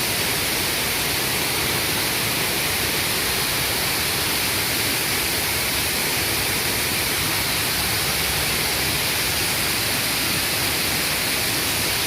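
Water pouring steadily over a small canal waterfall: an even, unbroken rushing hiss.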